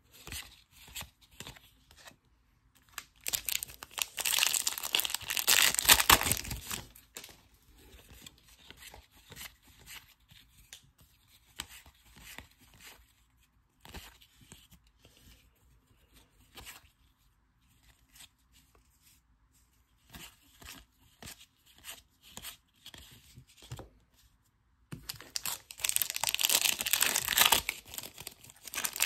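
Plastic-foil wrapper of a Topps baseball card pack crinkling loudly, first from about three to seven seconds in and again near the end, when the pack is torn open. In between come soft, scattered clicks of cards being slid and flipped in the hand.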